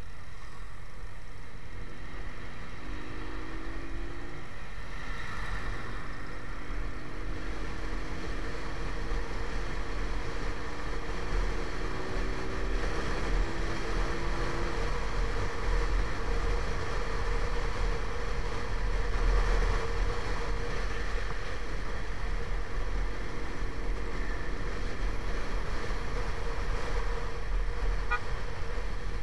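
Motorcycle engine running on the move in traffic, its pitch climbing slowly as the bike accelerates over several seconds, with a deep wind rumble on the mounted camera's microphone.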